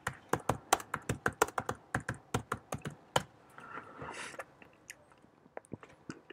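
Fast typing on a computer keyboard: a quick run of about twenty key clicks over roughly three seconds, then a few faint, scattered clicks.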